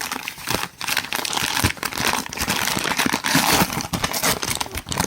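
Packaging crinkling and crackling as it is handled and pulled off a book, in a dense run of irregular short crackles.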